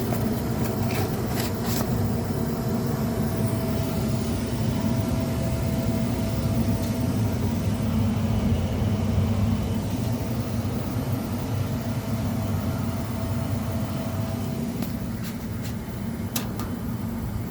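Furnace blower running steadily during air-conditioner cooling, moving air across the evaporator coil with a low, even hum. A few light clicks come near the start and near the end.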